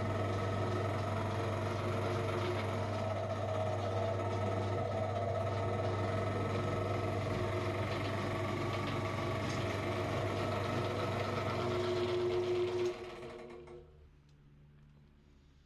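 Electric meat grinder motor running steadily with a strong hum while grinding soap, then switched off about 13 seconds in and winding down over about a second.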